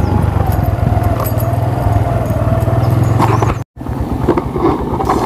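Motorcycle engine running steadily while riding an off-road track. The sound drops out completely for a moment about three and a half seconds in, then the engine carries on.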